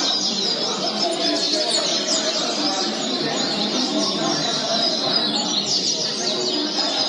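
Many double-collared seedeaters (coleiros) singing over one another, as at a singing tournament: a dense, unbroken run of fast high chirping phrases. A low murmur of voices runs underneath.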